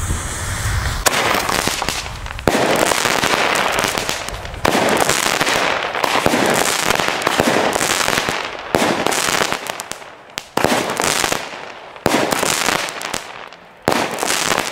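Xplode 45er Colt firework battery (cake) firing: a series of shots about every one and a half to two seconds, each followed by a long crackling burst of crackling stars.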